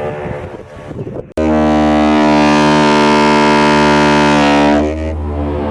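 Homemade PVC-pipe ship horn. After about a second of rough noise, it sounds a loud, steady, low blast lasting about three and a half seconds, then drops to a quieter tone near the end.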